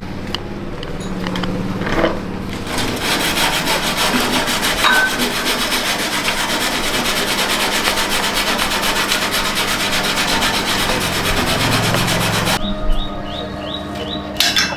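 Rapid, steady abrasive scrubbing, a dense run of fine strokes, that builds up a couple of seconds in and stops abruptly near the end.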